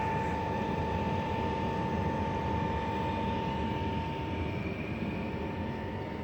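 12V diesel air heater running: steady blower and combustion noise with a motor whine that fades out about four and a half seconds in.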